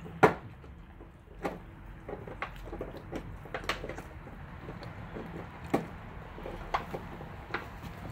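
Renascence Bulldogge puppy chewing a raw chicken leg quarter: irregular crunches and wet chomps, the sharpest and loudest just after the start, the rest scattered about once a second.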